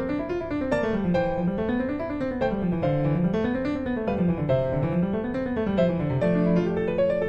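Background piano music: a flowing line of quick notes over a bass that rises and falls in smooth waves about every second and a half.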